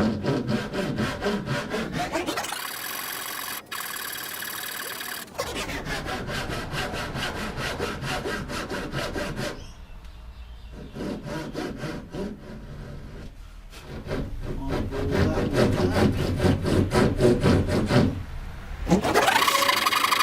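A saw cutting into a hardwood tenon shoulder with rapid, repeated strokes, the saw rasping through the wood.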